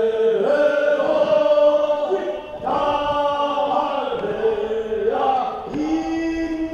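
Voices singing a Korean funeral bier song (sangyeo sori) together as a chorus, in long held notes that step up and down in pitch.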